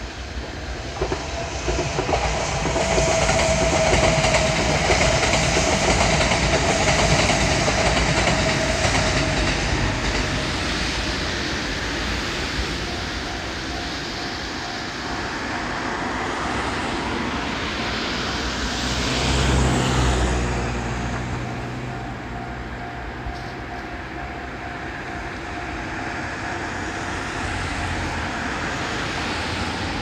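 Train running past a Japanese level crossing, its wheels clattering over the rails, loudest in the first ten seconds and swelling again about twenty seconds in. The crossing's warning bell ringing ('kan kan') under the train noise.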